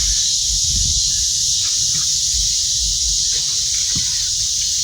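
Steady, high-pitched insect chorus with a low rumble underneath.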